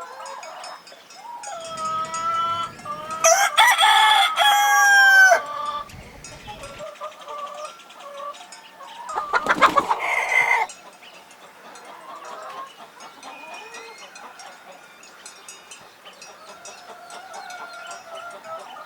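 Rooster crowing: one long, loud crow a few seconds in and a second loud crow about halfway through, with quieter chicken clucking between and after.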